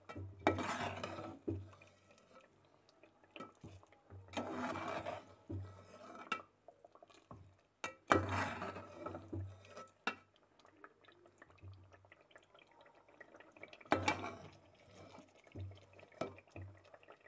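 Metal spoon stirring thick, creamy paneer curry in a metal pot: four short bouts of wet scraping, with a few sharp clinks of spoon against pot.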